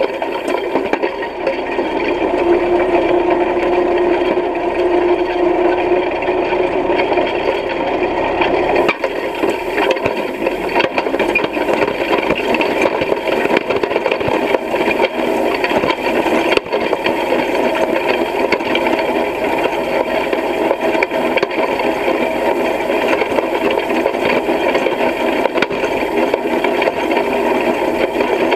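Side-delivery hay rake working through hay: a steady, loud rattle and clatter of its reel, tine bars and metal frame.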